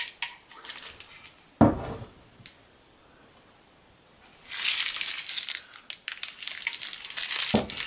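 Plastic wrapping on a ball screw crinkling as it is handled, in bursts through the second half, with a single bump about one and a half seconds in.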